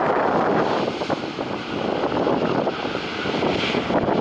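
Jet engines of a Japan Airlines Boeing 787-8 running as the airliner rolls along the runway: a loud, steady noise that dips slightly around the middle.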